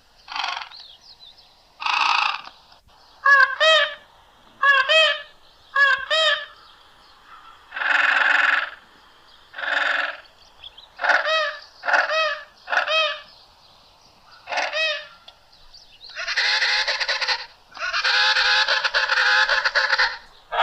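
Creature calls built from slowed-down turkey and penguin calls: a series of honking, wavering calls, most under a second long, ending with two longer calls about 16 and 18 seconds in.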